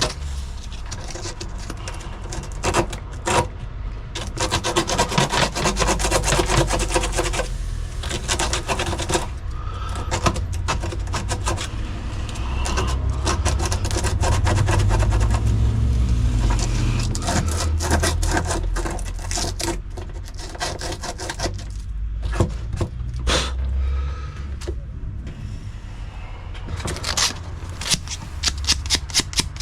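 Rapid, repeated scraping strokes on a car's painted metal as paint is rubbed off down to bare metal, going on in runs with short pauses.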